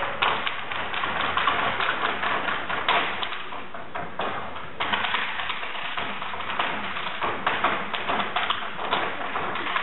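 Irish hard-shoe dancing on a wooden stage: a dense, rapid stream of heel and toe taps with no music behind them.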